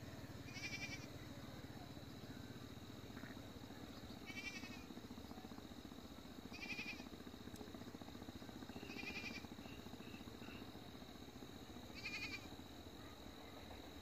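Faint animal calls: five short, quavering high-pitched calls about two to three seconds apart, over a steady thin high-pitched drone.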